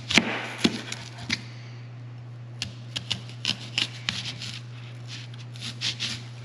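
Chef's knife slicing a peeled yellow onion into thick rings on a plastic cutting board: crisp cutting sounds and clicks of the blade on the board, in two runs with a short pause between and a few more cuts near the end.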